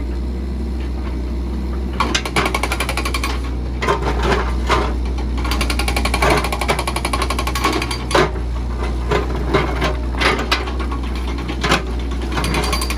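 Case 695ST backhoe loader running, a steady low engine hum overlaid by bouts of rapid mechanical rattling and clatter.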